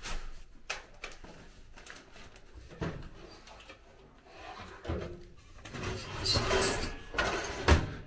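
Metal clunks, scrapes and rattles of an old Tappan gas stove's enamelled steel oven door being opened and then shut, the handling growing busier in the last couple of seconds and ending in a sharp knock as the door closes.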